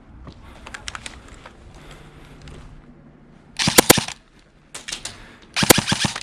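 Airsoft gun firing two short bursts, each a quick string of sharp cracks, the first about three and a half seconds in and the second near the end. Fainter clicks and rustling come before them.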